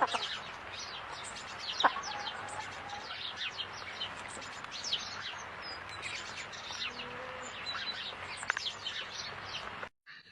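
A dense chorus of small birds chirping: many short, high, downward-sweeping chirps overlapping one another, which cut off suddenly near the end.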